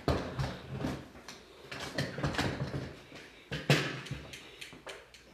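Fishing gear being handled and set down on a table: an irregular string of knocks and clatters, the sharpest just after the start and again nearly four seconds in.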